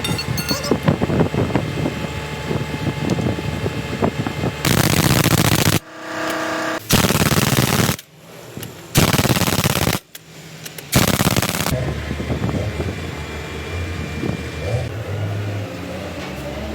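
Pneumatic impact wrench run in four rattling bursts of about a second each, between stretches of steady machine running noise, typical of the wheel hub being bolted back up on a Lonking 855N wheel loader.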